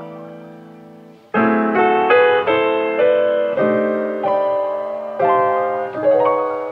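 Background piano music: a held chord fades out, then, about a second and a half in, a run of struck notes and chords starts, each dying away after it is played.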